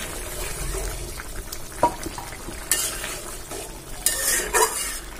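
A metal spoon stirring a thick carrot and potato curry in a metal pot, with a few scrapes and clinks against the pot. Under it, a steady sizzle as the curry simmers.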